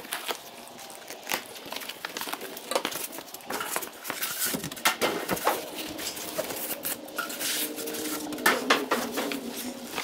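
A cardboard shipping box being cut open with a utility knife and handled: the blade scraping through the packing tape, with cardboard scraping, rustling and knocking in short irregular clicks.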